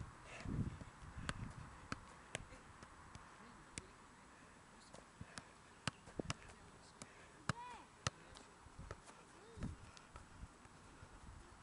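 Football being dribbled and juggled on artificial turf: scattered, irregular sharp taps of foot on ball and ball on the pitch, over faint background voices.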